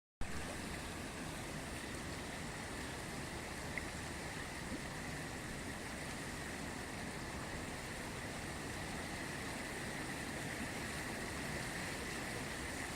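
The Ganges river flowing: a steady rush of water.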